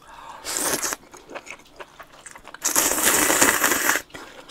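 A person slurping cold buckwheat naengmyeon noodles: a short slurp about half a second in, then a long, loud slurp lasting over a second.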